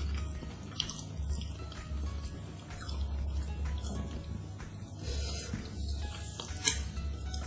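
Close-up eating sounds: wet smacking and small clicks of chewing, over quiet background music, with one sharper click near the end.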